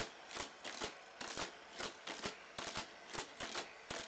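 Hot Wheels die-cast car lapping the Roto Revolution playset's loops and battery-powered boosters: a quick, even run of short whirring bursts, several a second, as the car is flung through the boosters again and again.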